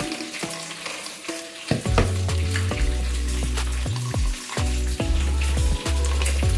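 Chicken frying in hot oil in a saucepan, crackling and popping. Background music plays over it, and its bass line comes in loud about two seconds in.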